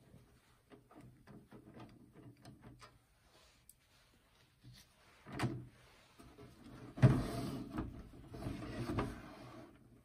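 Small clicks of a screwdriver working the stereo's case screws, then a knock about halfway and a louder scraping clatter near the end as the stereo's case is handled.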